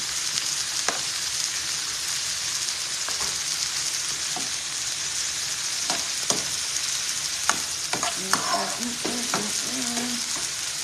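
Sliced onions and bell peppers sizzling steadily in hot vegetable oil in a skillet, with the irregular clicks of a metal slotted spoon against the pan as they are stirred.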